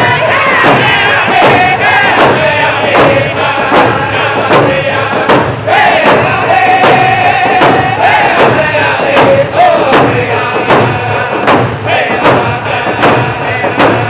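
A group of men singing a Native American round dance song in unison, with long held and sliding notes, over a steady beat of hand drums.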